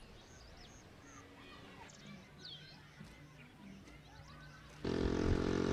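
Faint outdoor ambience with several birds calling in short chirps and whistles that slide in pitch. Near the end a loud, steady engine-like hum cuts in suddenly.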